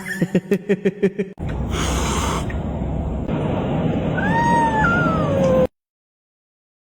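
A cat meowing: one long call that rises, then falls, over a steady background hiss. Before it come a rapid run of short pulses, about eight a second, and then the sound cuts off suddenly.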